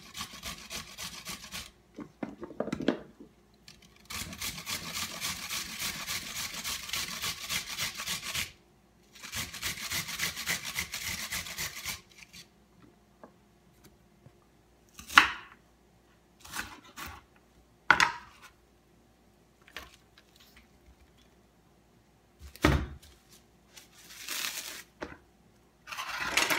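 Vegetables being grated on a metal box grater: runs of rapid rasping strokes against the blades, in three bursts over the first twelve seconds. After that come scattered knocks and clatter of the grater and knife on a wooden cutting board, with one low thud.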